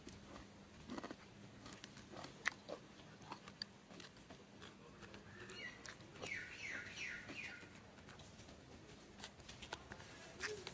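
Long-tailed macaque biting and chewing a green bean pod close to the microphone: faint, irregular crunching clicks. About six seconds in, a bird gives a short run of quick falling chirps in the background.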